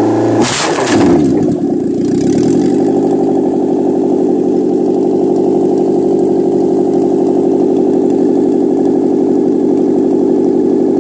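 Daihatsu/Toyota K3 four-cylinder car engine revved. About half a second in it gives a short loud burst as the revs fall, then it settles into a steady idle.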